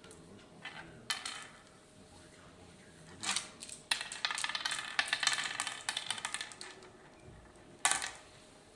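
Oware seeds clicking against a wooden oware board: a few single clicks as the seeds are picked up, then a quick run of many clicks over about four seconds as they are dropped into the pits one by one, and a sharp click near the end.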